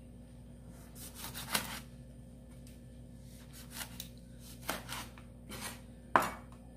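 Kitchen knife slicing through a lemon on a plastic cutting board: a handful of scattered cuts and scrapes, with a sharper knock near the end.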